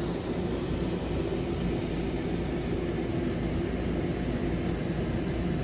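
Steady mechanical hum with a rushing air noise that runs on without change.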